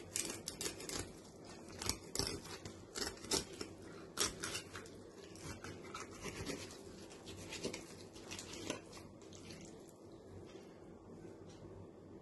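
A knife cutting and scraping through a pink salmon on a cutting board: quick, irregular scraping strokes that thin out after about nine seconds.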